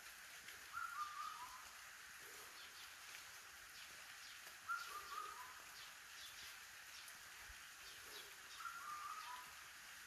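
Light rain falling steadily, with drips pattering. Three times, about four seconds apart, a bird calls a short phrase of a few notes that step down in pitch.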